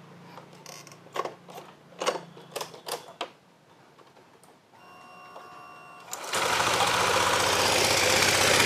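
A few clicks, then a short steady whine, and about six seconds in the Honda Vario 125 scooter's single-cylinder engine starts and runs with a fast, rattling beat. The engine is being checked for a rough noise that the mechanic puts down to oil not reaching the top of the engine.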